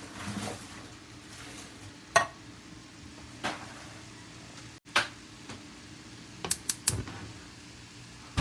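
A spoon knocking and scraping in a cooking pot as canned beans are stirred, with a handful of sharp clinks spread out and three in quick succession near the end.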